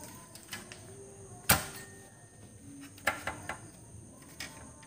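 Clicks and knocks of an Onkyo amplifier's circuit boards and finned metal heatsink being handled and fitted back into the chassis: one sharp knock about one and a half seconds in, a quick run of clicks about three seconds in, and another near the end.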